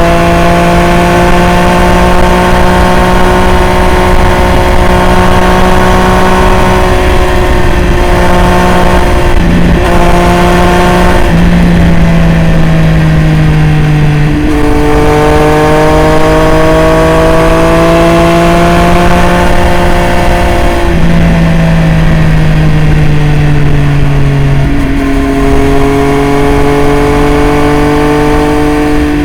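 Triumph Street Triple RS three-cylinder engine running through a Jeskap full aftermarket exhaust under way. Its note drops in pitch in steps several times and rises slowly in between.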